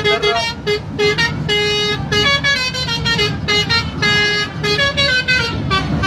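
A lorry's telolet musical air horn playing a melody: a quick run of short and held notes stepping up and down in pitch, with road and engine rumble underneath.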